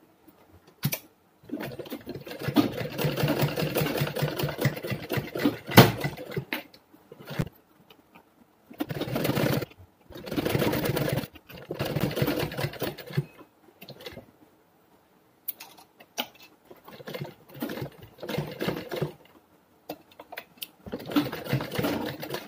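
Sewing machine stitching a fabric seam in a series of short runs that start and stop, with pauses between them and a sharp click about six seconds in.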